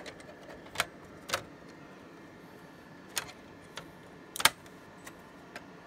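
Short, sharp clicks and knocks as a dual-port 10-gigabit network card is handled and worked into a server's PCIe riser slot, about eight of them spread irregularly, the loudest about four and a half seconds in.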